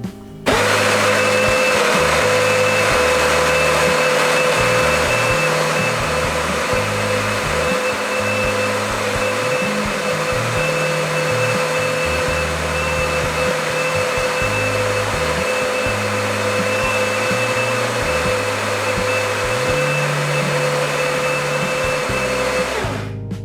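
Electric coffee grinder running steadily as it grinds about 75 grams of beans to a coarse grind for cold brew, with a steady whine over the motor noise. It starts about half a second in and stops abruptly near the end.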